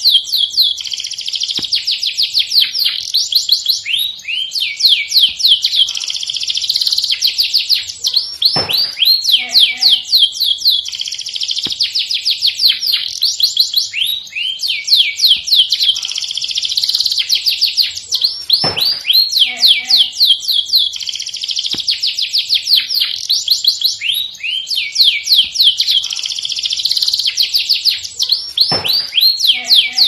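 Domestic canary singing a continuous song of rapid trills and rolls, high-pitched, with a sharp falling whistle that comes back about every ten seconds. The same run of phrases repeats in roughly ten-second cycles.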